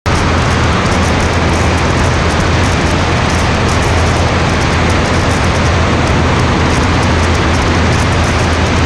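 Steady in-flight cabin or airframe noise of a light aircraft: a constant low engine and propeller drone under loud, even wind rush, with no change in power.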